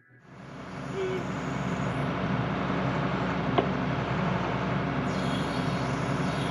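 Excavator-mounted hydraulic breaker hammer running steadily as it drives a steel pipe into the soil to punch a hole for a solar panel post, over the excavator's engine, with a sharp metallic clank midway. The sound comes in about a third of a second in and builds over the first second.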